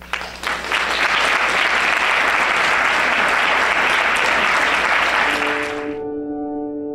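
Audience applauding, building from a few claps into full applause within the first second, then cutting off suddenly about six seconds in. Soft piano music comes in just before the cut.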